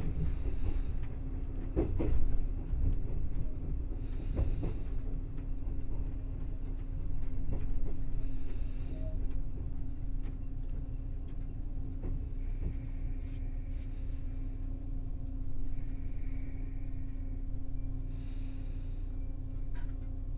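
381 series electric train running through station tracks, heard from the rear driving cab: a steady low rumble and hum, with wheels clicking over rail joints a few times in the first seconds and several short high-pitched sounds in the second half.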